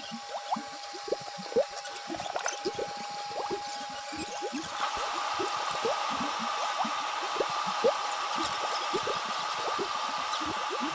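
Bubbling water sound effect, a stream of small bubble pops, over the steady whine of a 3D printer running a print. A second, higher machine tone joins about five seconds in.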